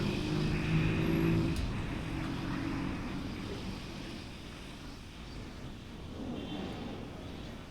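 A motor vehicle's engine running close by for about a second and a half, then falling away into a low, fading rumble of traffic.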